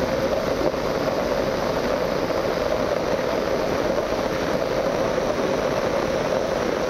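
Steady heavy rain falling, a dense, even hiss that holds unchanged throughout.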